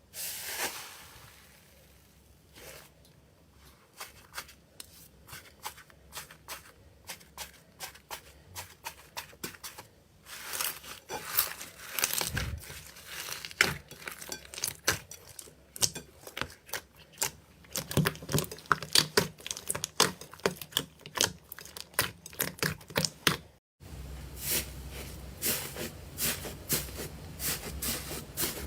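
Slime being squeezed, poked and stretched by hand, giving a rapid run of sharp clicks and crackling pops. It starts about four seconds in, and is densest in the middle.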